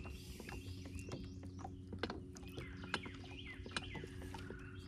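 Small birds chirping with many short, quickly falling calls, over a steady low hum and scattered sharp clicks.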